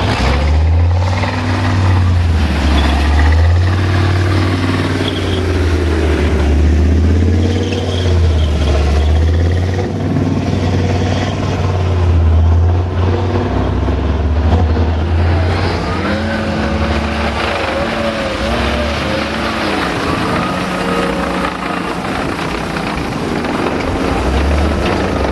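Heavy military vehicle engine running loudly, a deep rumble whose pitch keeps rising and falling as it is driven.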